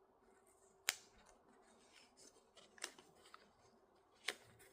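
Three short, sharp clicks about one and a half to two seconds apart, over near silence.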